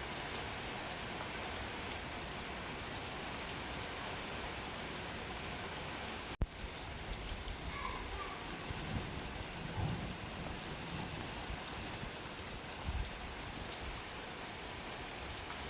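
Steady rainfall hissing evenly, briefly cut off for an instant about six seconds in.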